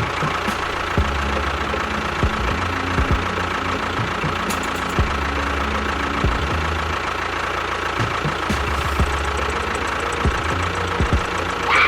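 Mini model tractor's motor running steadily with an engine-like chug, with scattered short clicks. A brief falling whistle comes near the end.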